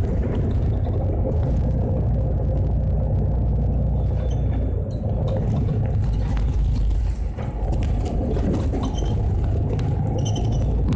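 Mercedes-Benz Citaro Facelift city bus heard from inside the passenger cabin while driving: a steady low engine and road rumble, with a few brief high squeaks about four seconds in and again near the end.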